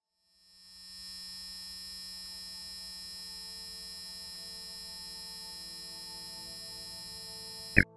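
Steady electronic hum with a high whine over it, fading in about half a second in and holding level, then cut off by one sharp, loud click near the end.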